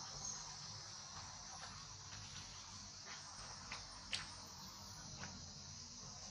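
Faint, steady, high-pitched insect chorus, with a few soft clicks scattered through it; the loudest click comes about four seconds in.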